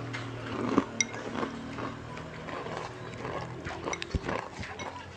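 Close-up eating sounds: chewing chicken noodles with wet mouth clicks, and bamboo chopsticks knocking and scraping in a ceramic bowl, heard as an irregular run of small clicks with a faint steady hum underneath.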